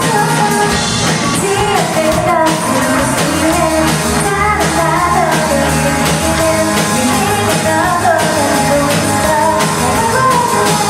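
Live rock band playing with a lead singer: drums keeping a steady beat under a sung melody.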